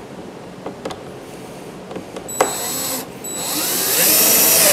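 DeWalt 12-volt cordless drill/driver driving a long wood screw into a wooden boat rib: a short burst about two and a half seconds in, then a longer, louder run whose whine rises in pitch and then begins to drop as the screw goes in.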